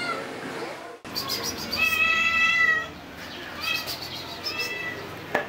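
Domestic cat meowing: one long, high meow lasting about a second, then two shorter meows. A short sharp click comes near the end.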